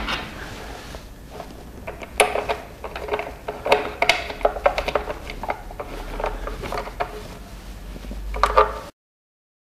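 A screw being tightened by hand with a thin tool through a plastic tricycle seat into the trike's body: a run of small irregular clicks and clatters of tool, screw and plastic parts.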